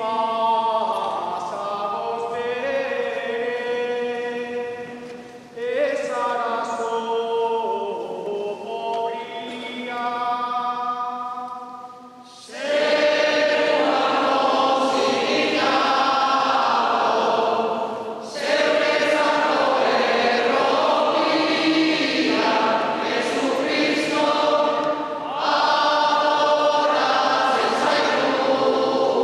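A mixed group of marijesi carol singers singing a Basque Christmas carol. A man sings the opening lines alone, and about twelve seconds in the whole group joins in, much louder.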